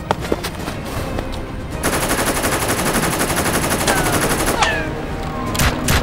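Dubbed-in gunfire sound effects: a few scattered shots, then a sustained burst of rapid automatic machine-gun fire lasting about three seconds. A few short tones falling in pitch come near the end of the burst, and then separate single shots.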